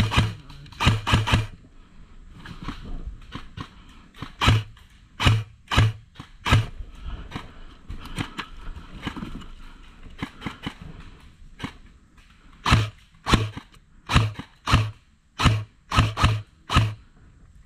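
Airsoft rifle firing single shots, each a sharp snap with a short thump: a few at the start, four more around five seconds in, then a quicker string of about eight in the last five seconds. Between the shots there is quiet rustling of handling.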